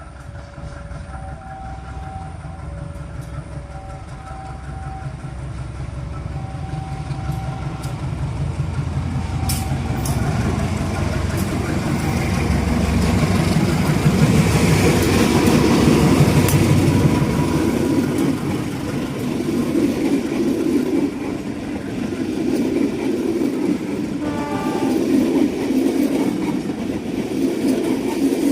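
A level-crossing warning alarm alternates between two tones in the first few seconds. A train then approaches and passes: a locomotive's heavy rumble builds to a peak about halfway through and falls away, and the carriages roll past with a rhythmic clickety-clack. A short horn-like tone sounds near the end.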